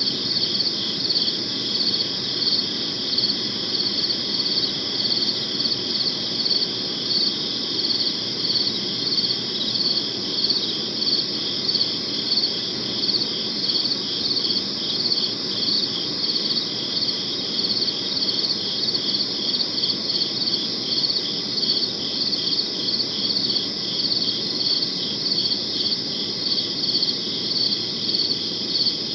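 Crickets chirping on and on: a high steady trill that pulses evenly about twice a second, over a faint low background haze.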